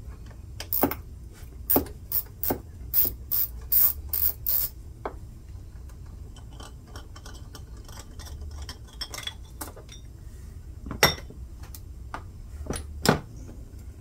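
Hand tools working on a portable inverter generator's fasteners and housing: a quick run of sharp metallic clicks, about two a second for the first few seconds, then fainter ticks and scraping, and two louder clicks near the end.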